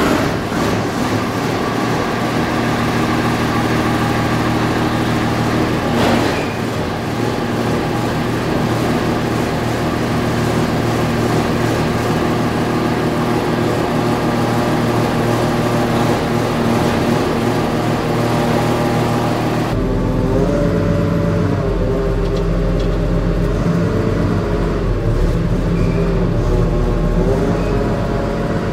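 O&K L 25 wheel loader's diesel engine running steadily while the steering is worked to bleed air from the freshly resealed steering cylinder. About twenty seconds in the sound turns deeper and duller, with a wavering pitch.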